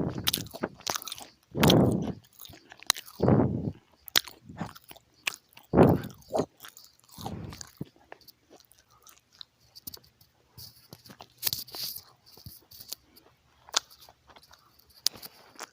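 Close-miked chewing and biting of crunchy food: several loud crunches in the first half, then lighter crackling, clicking chews.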